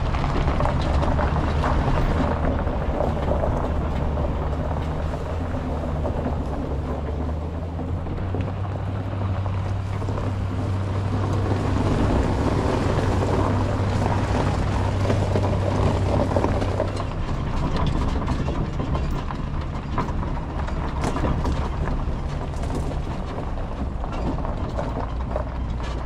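A vehicle driving on the road while towing a loaded equipment trailer: a steady low engine drone under tyre and road noise. The engine note shifts slightly about 17 seconds in, and a few light rattles come later.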